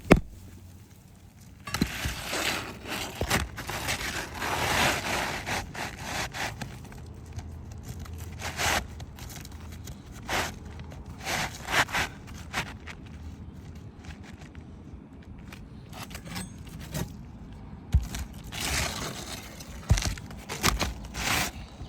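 Asphalt roofing shingles being handled and pressed down on a roof: irregular scraping and rustling of the gritty shingle surfaces, with a few sharp knocks, the loudest at the very start.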